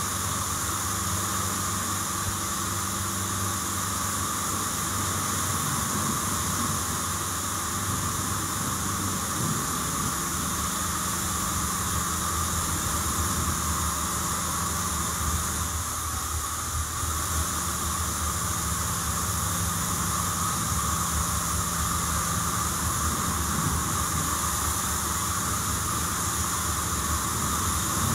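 Two pressure-washer lances spraying water onto a car's bodywork: a steady hiss of the jets, with a steady low machine hum underneath.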